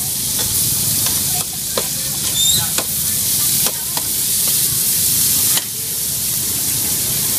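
Stir-fried noodles with bean sprouts and greens sizzling on a wide, flat metal pan as a metal spatula scrapes and turns them. The spatula clicks against the pan several times over a steady hiss.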